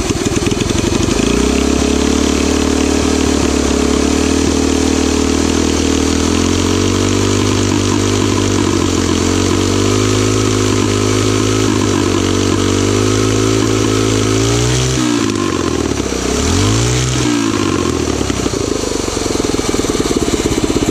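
Single-cylinder Tillotson 212cc four-stroke engine with its governor removed, running while its Tillotson TCT carburetor is being tuned. Its speed creeps slowly upward, then about fifteen seconds in it drops sharply and picks back up twice before settling.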